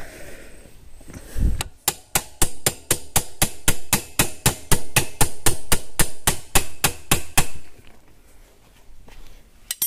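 A hammer tapping a steel rod through the motorcycle's bushed mount, in a quick even run of about four strikes a second that starts about one and a half seconds in and stops near the end. The taps are driving the rod across to line it up so a nut can be fitted.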